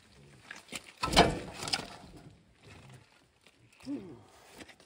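A man grunting with effort as he heaves a log onto the bed of a portable sawmill. The loudest strain comes about a second in, and a short falling grunt comes near the end.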